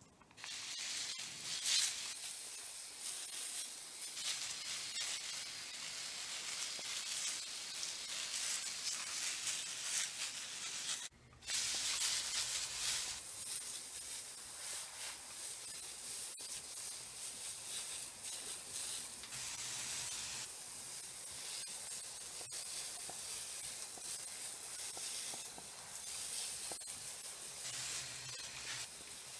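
Hand-held garden sprayer hissing as it sprays a fine mist of liquid over fruit-tree foliage. The spray runs steadily, cutting out briefly once about eleven seconds in.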